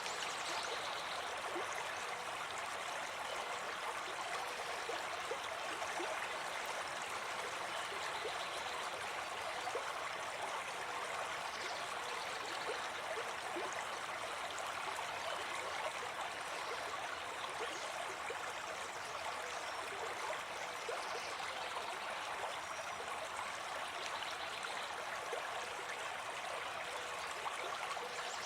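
A small forest stream flowing, its running water making a steady, even rush.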